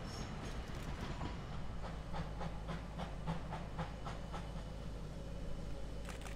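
Two-foot narrow-gauge steam train running: a steady low rumble, with a run of light clicks, about four a second, for a couple of seconds in the middle.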